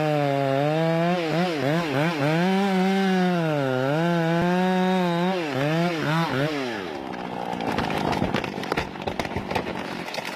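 Two-stroke chainsaw running at high revs, its pitch rising and dipping as it cuts into the trunk, then dropping away about six and a half seconds in. A rough run of cracking and crackling noise follows.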